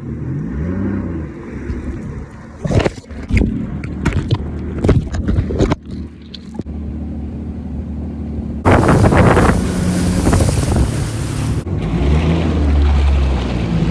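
Jet ski engine running and changing pitch as the throttle varies, with wind buffeting the microphone. Several sharp knocks come in the first half, and a loud rushing noise takes over for about three seconds past the middle before the engine hum comes back.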